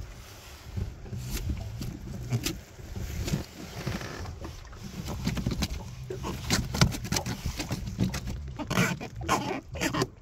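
An armado (thorny catfish) out of the water, croaking in repeated low grunting pulses as it is handled. Sharp knocks and scrapes against the metal deck come through, more of them in the second half and the loudest about seven seconds in.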